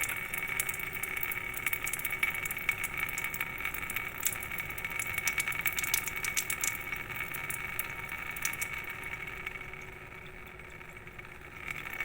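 Salt water from a neti pot trickling and dripping out of the nose during jal neti nasal rinsing, a thin running stream with many small drip splashes that dies down over the last few seconds.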